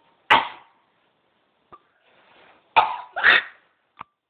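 A person coughing: one sharp cough right at the start, then two more in quick succession near the end.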